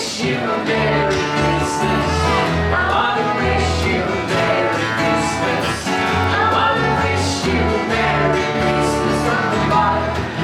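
Country/bluegrass-style music with singing over plucked acoustic guitar and a steady bass line.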